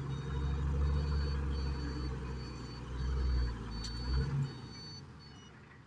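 Heavy earthmoving machine's engine running with a low rumble while its reversing alarm beeps repeatedly at a high pitch, the vehicle backing up. The engine sound falls away about four seconds in and the beeping carries on.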